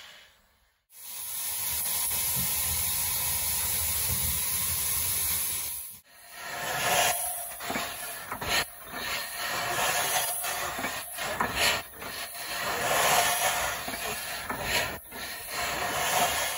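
Steam hissing steadily from a steam locomotive. After a cut about six seconds in, it gives way to a rougher, uneven hiss with frequent sharp peaks.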